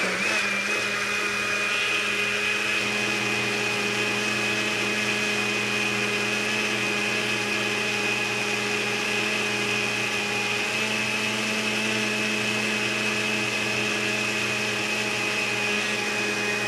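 Countertop blender running steadily on high, blending a smoothie of bananas, strawberries, blueberries, milk and sugar, with a continuous motor whine and a high tone.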